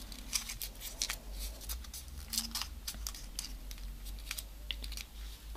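Small paper origami module being folded and creased between the fingers: light paper crinkling with a scatter of small crisp ticks.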